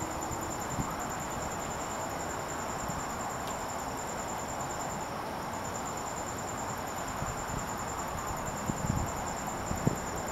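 Night insects trilling: a fast, even, high-pitched pulsing that keeps on over a steady outdoor hiss, with a few soft low bumps near the end.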